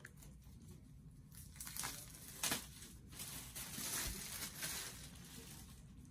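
Cardboard and paper packaging being handled and pulled open: crinkling and rustling, with a sharp snap about two and a half seconds in.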